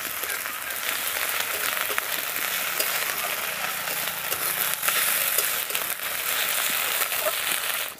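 Crushed onion and ginger paste sizzling in hot oil in a metal kadai, stirred with a metal spatula that scrapes and clicks against the pan. The sizzle cuts off suddenly at the end.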